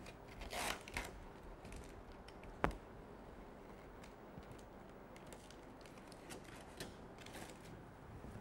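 Faint scraping and small clicks of a snap-off utility knife trimming the overhang of packing tape along the edge of a foam model boat hull, with one sharp click about two and a half seconds in.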